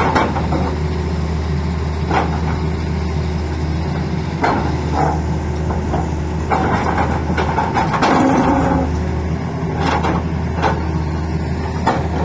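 Tata Hitachi excavator's diesel engine running steadily, with sharp knocks every couple of seconds and a stretch of scraping about two-thirds of the way through as the bucket cuts into the road.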